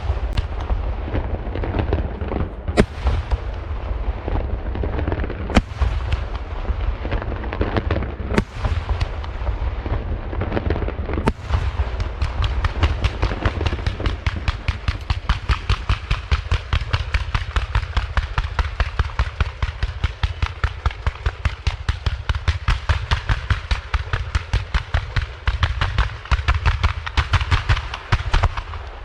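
Aerial fireworks display: loud shell bursts about every three seconds over a dense crackle, then from about twelve seconds in a fast, even run of sharp bangs, several a second.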